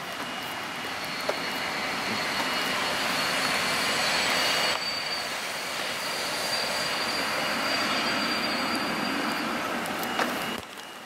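A passing vehicle: a steady rushing noise with faint high squealing tones. It grows louder over the first few seconds and cuts off abruptly near the end.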